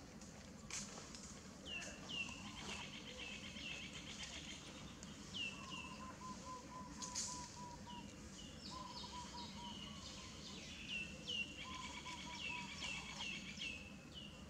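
Background birds chirping: repeated short falling notes high up, with a lower quick trill of rapid repeated notes coming in several times, over a steady outdoor hum.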